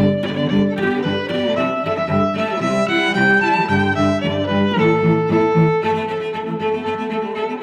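Background music played on bowed strings, violin and cello, a moving melody over a lower line.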